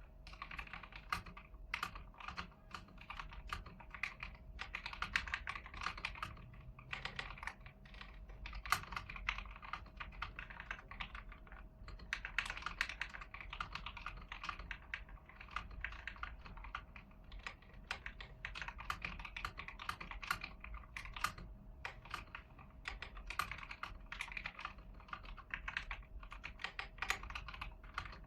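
Continuous typing on a stock, unmodified AIGO A100 mechanical keyboard with yellow switches: a fast, dense clatter of keystrokes with a few brief lulls.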